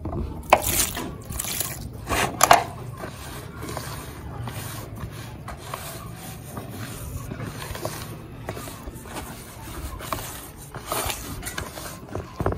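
A hand kneading and squeezing damp wheat bran in a plastic basin: a continuous gritty rustling and scraping of the bran against the plastic, with a few louder scrapes near the start and again near the end.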